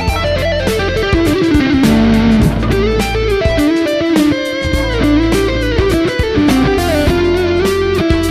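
Electric guitar played through a Mooer GE150 Pro multi-effects processor: a single-note lead melody with bends and vibrato, over a backing of steady drums and bass.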